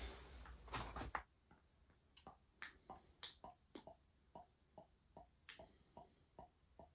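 Faint, regular glugging, about three to four short pops a second, as hydraulic oil pours from a plastic can into a funnel on the mini excavator's tank and air gulps back into the can.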